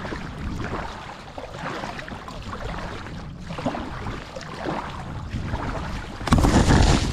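Small waves lapping at the waterline, with wind buffeting the microphone. Near the end a louder rush lasts most of a second.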